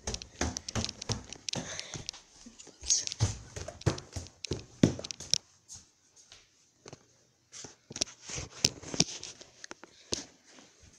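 Footsteps and the knocks and rubbing of a hand-held phone as its carrier walks through the house, in irregular clicks and thumps that pause briefly about six seconds in.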